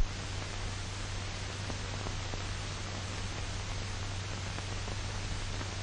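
Steady hiss and low hum of an old optical film soundtrack, with nothing else heard over it.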